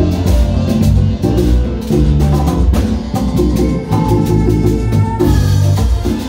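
Live Latin dance-band music with hand-played congas and other percussion driving a steady beat under bass and keyboard.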